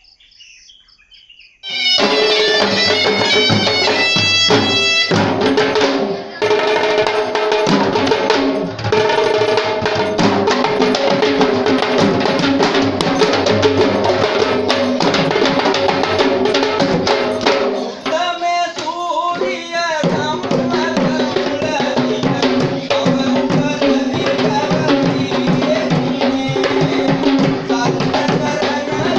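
Sri Lankan traditional drum ensemble playing fast, dense rhythms, with held pitched tones sounding over the drums. The drumming comes in suddenly about two seconds in.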